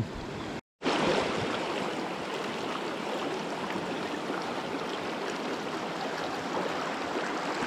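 Steady rush of river water running over rocks, after a brief break less than a second in.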